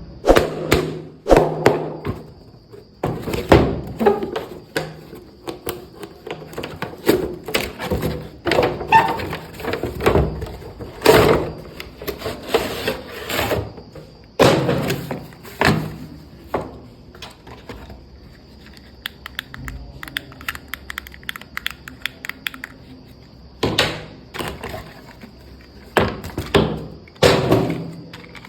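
Irregular knocks, thunks and rustling as a toy RC car and its box and packaging are handled, with a stretch of fast fine clicking about two-thirds of the way through.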